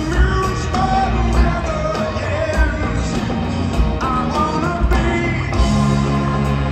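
Live rock band playing with a lead vocal over drums and bass, amplified through an arena PA.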